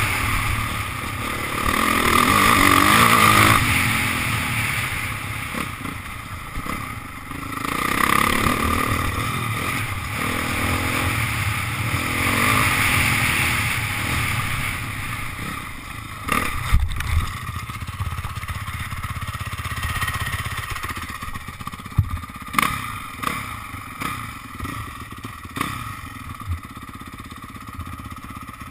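Dirt bike engine revving in repeated surges as it is ridden, rising and falling in pitch. From about halfway the engine drops to a lower level and sharp knocks and clatter come through.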